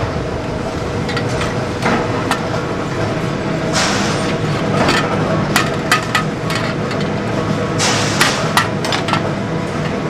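Hand hammer striking a steel shovel blade held in tongs on a steel anvil beam: single, irregular blows about a second apart, some ringing briefly, over a steady hum.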